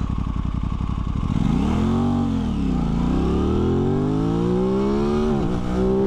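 Aprilia RS 660's 659 cc two-cylinder engine on a full-throttle launch: the revs rise at a standstill about a second and a half in, sag as the bike pulls away about three seconds in, then climb hard through first gear. The revs drop sharply at an upshift just past five seconds and climb again in second gear.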